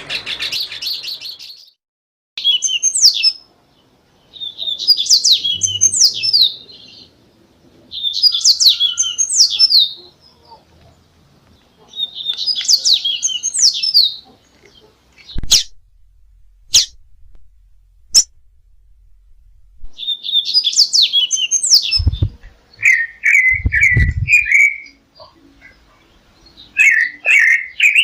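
Songbird singing on a masteran training recording: bursts of rapid, high twittering notes about two seconds long, repeating every few seconds, then shorter runs of lower repeated notes near the end. A few sharp clicks come about halfway through, and two dull low thuds a little later.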